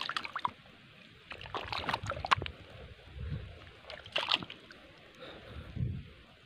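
Hands digging and scooping in shallow muddy water and wet mud at a stream bank: irregular splashing and sloshing with short clicks and a couple of dull low thumps. The mud is being dug away by hand to open up an eel burrow.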